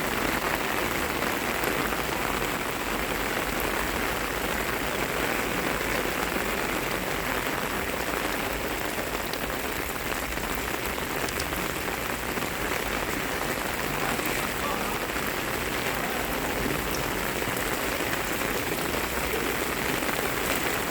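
Steady rush of storm runoff pouring down a flooded street like a small river, mixed with falling rain. The water overflows because mudslides have blocked the drains.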